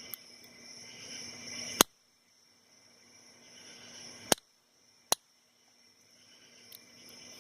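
Bump hammer tapping the head of a bump key seated in a Sesamee 551 padlock: three sharp metallic knocks, with fainter clicks before and after, as the key is struck to jolt the pins. The spool security pins keep catching, so the lock does not open yet.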